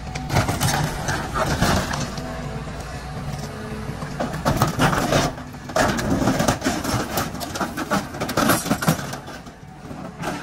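Hydraulic excavator's bucket crushing an old pickup truck's cab: repeated crunches and bangs of buckling sheet metal in several bouts, over the excavator's engine running steadily.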